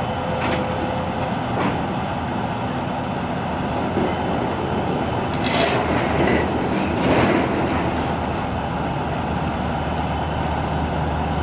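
Ludlum Model 19 micro-R meter's speaker crackling with a dense, steady stream of rapid clicks, the count rate so high that the needle is pegged on the 25 scale: a gamma source sits just behind the steel it is held against.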